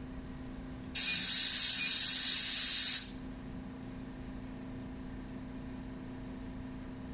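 KD-G030 ionizing air gun (static eliminator) blowing compressed air at 0.2 MPa: a loud hiss that starts abruptly about a second in and cuts off about two seconds later, the ionized air discharging a charged test plate. A low steady hum runs underneath.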